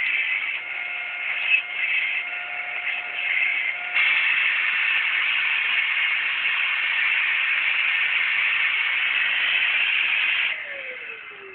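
Household vacuum cleaner running with a steady hissing rush of air. About four seconds in it suddenly gets louder, and near the end it is switched off and the motor winds down with a falling whine.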